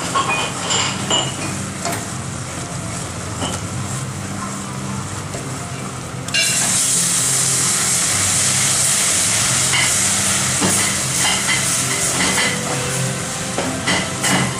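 Hot caramel bubbling in an aluminium saucepan, stirred with a wooden spoon. About six seconds in, beaten egg yolks are poured into the hot caramel and it bursts into a loud, steady sizzle that slowly eases over the following seconds.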